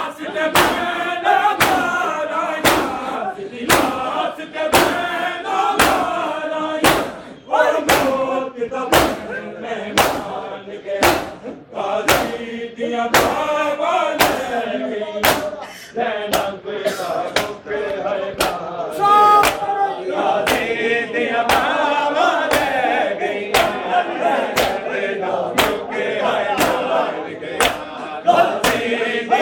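A crowd of men chanting a noha in unison while beating their bare chests in matam, the open-hand slaps on the chest keeping a steady beat under the voices.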